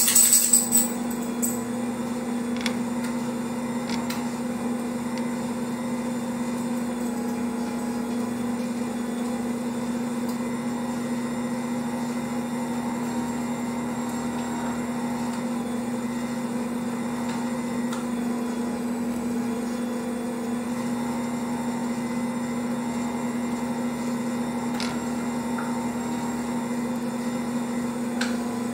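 Ankarsrum stand mixer running steadily, its motor humming as the dough roller and scraper knead bread dough in the steel bowl. A short clatter of clicks comes right at the start, and a few faint clicks follow later.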